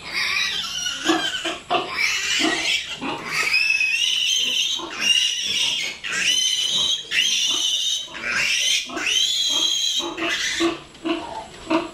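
A piglet squealing in distress while it is restrained for tail docking: a run of long, high-pitched, wavering screams with brief breaks. Near the end the screams stop and give way to short low grunts, about two a second.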